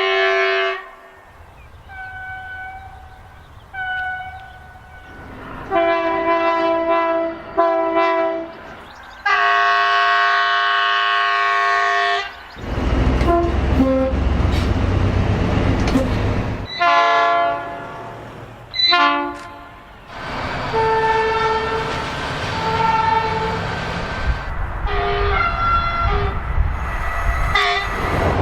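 A series of train horn blasts, some short toots and some held for a few seconds, several of them two-tone. A train runs past with a heavy rumble through the middle, sounding its horn as it goes.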